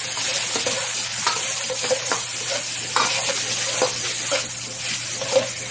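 Diced squid sizzling in a hot oiled wok while a steel wok spatula stir-fries it, the spatula scraping and knocking on the pan several times a second over the steady hiss.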